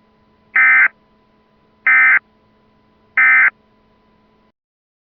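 Three short, loud bursts of Emergency Alert System end-of-message data tones (the buzzy SAME digital code), about a second and a quarter apart, which signal the end of the alert. A faint steady hum lies underneath and cuts off near the end.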